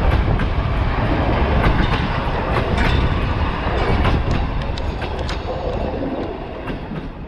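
Narrow-gauge train cars rolling past, wheels clicking and clattering over the rail joints with a deep rumble. The sound fades toward the end as the train moves away.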